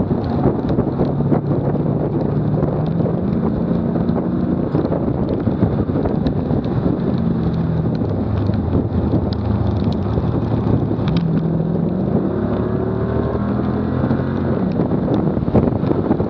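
Car engine running at speed, its note shifting up and down, under wind buffeting the microphone and tyre and road noise from a bumper-mounted camera.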